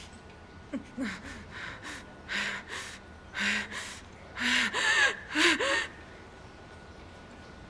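A person gasping for breath in a rapid run of short, voiced gasps, growing louder to a peak about five seconds in, then stopping about a second later.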